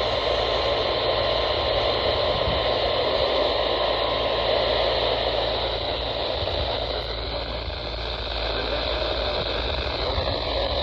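Steady radio static and hiss from a receiver with weak reception of the broadcast.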